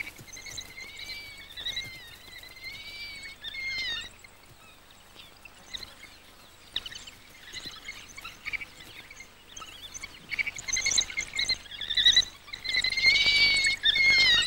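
A pack of African wild dogs giving high-pitched, wavering squealing calls while greeting each other, the excited calls that come before the pack sets off to hunt. One long run of squeals fills the first few seconds; after scattered short chirps, a louder run starts about ten seconds in.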